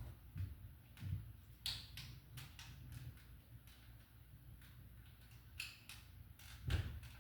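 Plastic power strip casing and its wires being handled and pressed together: scattered light clicks and taps, with one heavier knock near the end.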